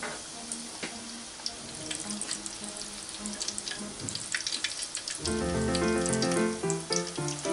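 Hot oil bubbling and crackling with many small pops around a beer-battered cod fillet deep-frying in an electric deep fryer. Background music comes in louder about five seconds in.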